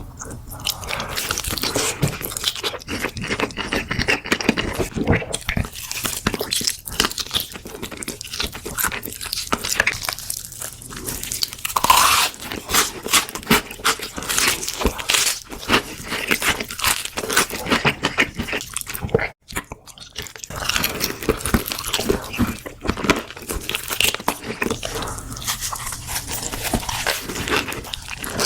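Close-up crunching and chewing as someone bites into crispy fried chicken, the breaded coating crackling with each bite. The crunching runs densely throughout, with a brief break about two-thirds of the way in.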